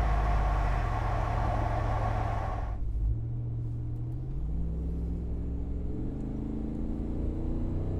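Ram 2500's 6.4-litre HEMI V8 running through a MagnaFlow straight-through stainless muffler, its exhaust note with the engine pitch easing down at first. About three seconds in the hiss and higher sound cut away sharply, leaving a lower, quieter engine note whose pitch then climbs as the engine revs up.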